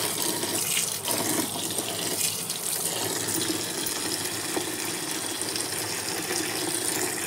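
Kitchen tap running in a steady stream of cold water onto boiled noodles in a stainless steel colander in a sink, rinsing them.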